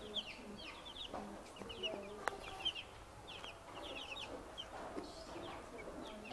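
A brood of newly hatched chicks peeping: many short, high, falling cheeps, overlapping and continuous. A single sharp click a little after two seconds.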